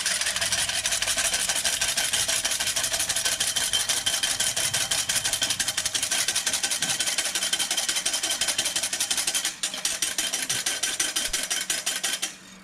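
Wire whisk beating liquid to a froth in a stainless steel saucepan, the wires striking the metal in rapid, even strokes. The whisking breaks off briefly about three-quarters of the way through, then stops just before the end.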